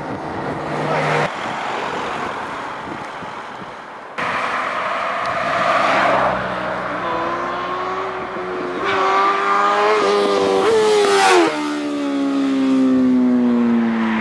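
Sport motorcycle accelerating hard toward the camera, its engine pitch climbing through several gear shifts, then passing close by with a sharp drop in pitch and fading as it pulls away. Before it, short snatches of passing traffic are broken by abrupt cuts.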